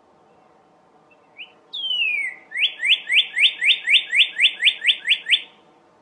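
Male northern cardinal singing its mating song: a short rising note, one long down-slurred whistle, then a fast run of about a dozen short rising whistles, roughly four a second, which stops about five and a half seconds in.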